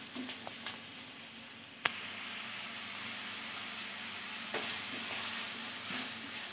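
Sliced onions sizzling in hot oil in a kadai, being fried until browned while a wooden spatula stirs them. One sharp tap about two seconds in stands out above the steady sizzle.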